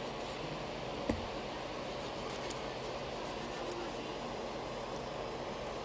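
Steady background hiss with two small, sharp clicks, one about a second in and another about two and a half seconds in.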